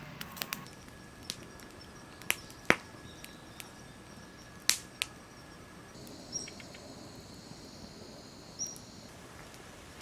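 Wood fire crackling, with irregular sharp pops from burning firewood, two of them louder. A faint high buzz runs for a few seconds in the second half.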